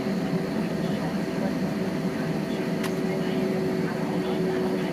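Steady drone of an Airbus A320 heard from inside the passenger cabin: the engines and airflow running evenly, with two steady hum tones over a low rumble.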